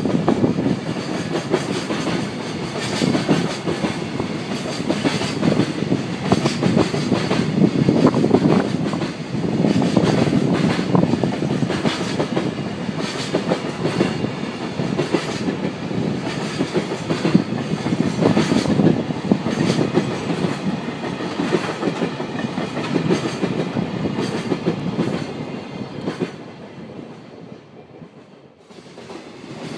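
Freight train's container flatcars rolling past, wheels clattering rhythmically over rail joints. The sound fades away near the end as the last wagon goes by.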